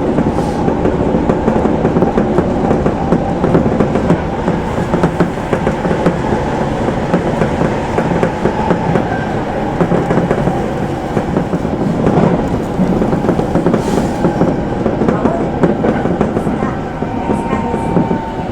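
Tobu commuter electric train running, heard from inside the front car: steady wheel and track rumble with many small clicks from the rails. A thin whine comes in near the end.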